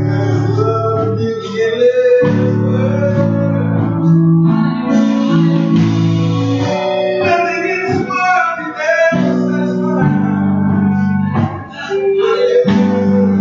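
Live church worship band playing: sustained chords over a bass line, drum hits and singing.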